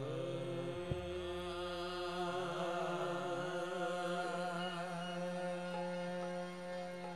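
Live qawwali: a singer's long held, wavering notes over sustained harmonium chords, amplified through loudspeakers. A short sharp click about a second in.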